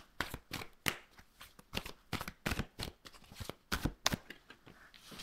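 A deck of tarot cards shuffled by hand: a quick, irregular run of card flicks and slaps.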